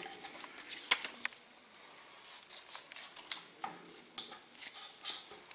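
Scissors snipping through a strip of paper: a series of short, sharp, irregular snips.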